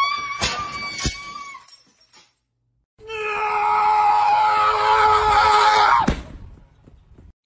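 A green parrot's shrill call, wavering and then held, with two sharp clicks. After a short gap comes a long, steady scream of about three seconds, the loudest sound, which cuts off suddenly with a thump.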